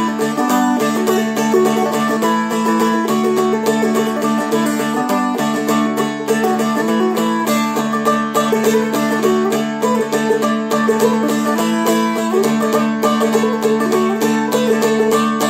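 Seagull Merlin, a four-string fretted dulcimer, flatpicked in a quick Celtic jig melody, with open drone strings ringing steadily underneath the tune.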